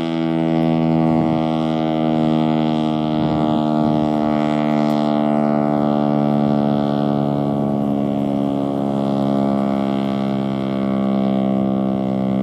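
Federal Signal STL-10A electromechanical outdoor warning siren sounding its steady Full Alert tone, a held chord-like wail whose loudness swells and fades gently every few seconds as the siren rotates.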